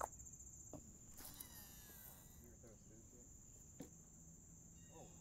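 Near silence with a faint, steady high-pitched insect chorus, the chirring of crickets, and a few soft clicks.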